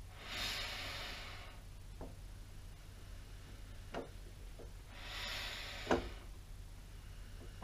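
Two breathy exhales through the nose, each about a second long, near the start and about five seconds in, with a few short metallic clicks and knocks as a lathe handwheel is handled and fitted to the carriage; the loudest knock comes about six seconds in.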